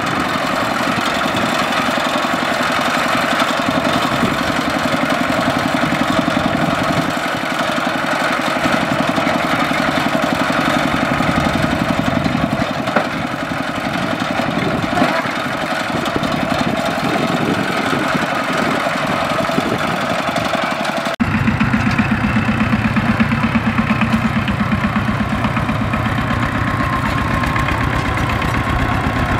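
Single-cylinder diesel engine of a two-wheel walking tractor running steadily under load as it drags a loaded trailer through mud. About two-thirds of the way through the sound cuts abruptly to a second walking tractor's engine, lower-pitched and slightly louder.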